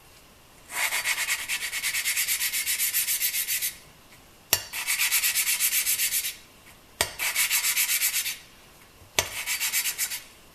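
Kawasaki KZ650 valve being hand-lapped into its seat with lapping compound: a gritty grinding rasp in four spells, each pulsing quickly as the suction-cup stick is spun back and forth between the palms. The last three spells each begin with a sharp click as the lifted valve is set back down on its seat.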